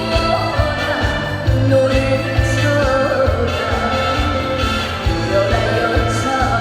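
Trot song performed live: a woman singing a melody over a steady drum beat and backing music.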